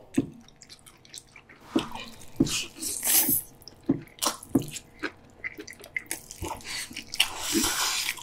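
Close-miked eating sounds of roast pork belly and spicy bibim-myeon noodles: wet chewing and lip-smacking clicks, with two longer slurps of noodles, about three seconds in and near the end.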